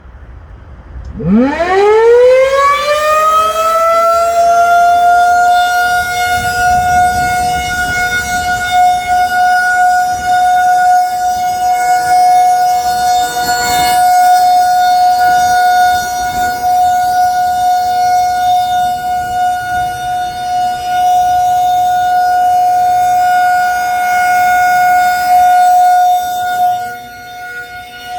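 A Federal Signal 2001-SRN rotating electromechanical outdoor warning siren winds up about a second in, its pitch rising quickly, then holds one steady tone for the alert signal. The tone grows louder and softer in slow swells, with a brief dip near the end.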